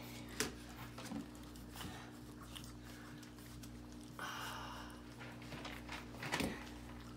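Young puppies lapping and snuffling at a shallow stainless steel feeding pan of gruel, over a steady low hum, with two sharp knocks, one about half a second in and one near the end.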